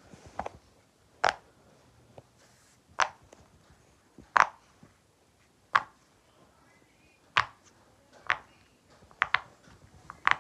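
Silicone pop-it fidget toy being pressed bubble by bubble: a sharp pop every second or so, with a quick pair near the end.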